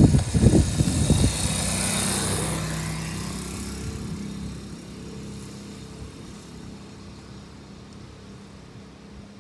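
Garbage truck's diesel engine rumbling loudly close by, then settling to a steady drone and fading away over several seconds as it pulls off.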